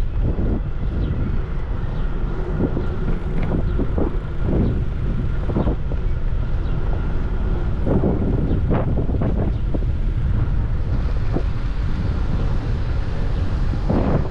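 Wind rumbling on the microphone of a camera riding on a moving bicycle, with road and traffic rumble beneath and scattered short knocks through it.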